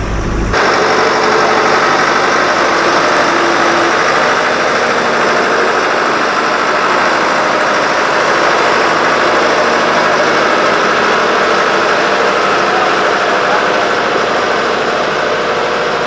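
Caterpillar 426 backhoe loader's diesel engine running steadily under heavy load as it drives uphill carrying a 3,700-pound concrete block in its front bucket.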